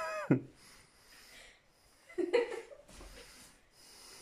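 A person breathing with effort in short breathy puffs, with a brief vocal sound about two seconds in, while crouched on all fours on the floor.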